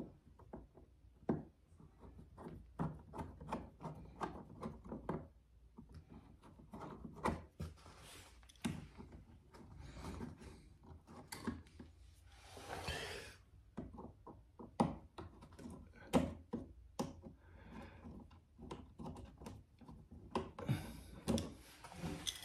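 Screwdriver turning out the mounting screws of a wall light switch: scattered small metal clicks, scrapes and rubbing against the switch and box, with a short scratchy rasp a little over halfway through.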